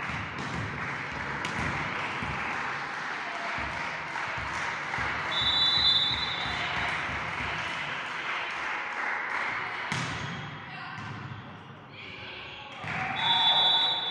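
A volleyball bounced several times on a sports-hall floor before a serve, with voices echoing in the hall. A referee's whistle about five seconds in, a hard hit on the ball about ten seconds in, and another whistle near the end as the rally stops.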